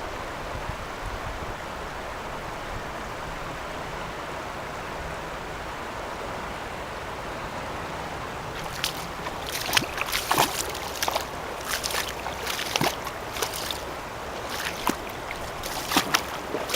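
Steady rushing of river water, joined about halfway through by an irregular run of short sharp clicks and knocks.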